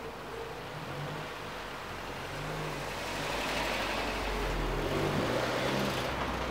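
Subaru WRX's turbocharged flat-four engine running as the car drives slowly past. The engine note and tyre noise grow louder from about three seconds in and peak near the end.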